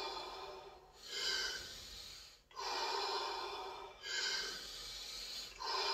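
A man's deep, rapid breaths in and out through the mouth, the power-breathing round of the Wim Hof method, about one full breath every second and a half: four breaths.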